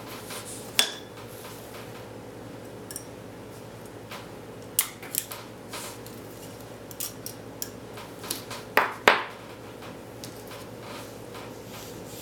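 Small steel revolver parts clicking and scraping as springs are worked back into a .22 revolver's crane assembly: scattered light metallic clicks, with the loudest pair about nine seconds in.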